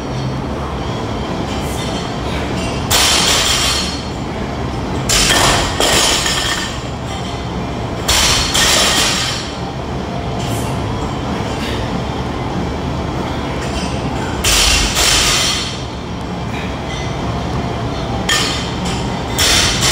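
Barbells loaded with rubber bumper plates clanking and rattling as they are lifted, dropped and set down on the gym floor, several times over a steady background of gym noise.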